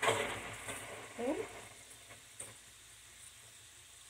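Potato chunks frying in oil in a skillet, sizzling as a metal spoon stirs them. The sizzle surges at the start and fades over a second or so to a low, steady hiss.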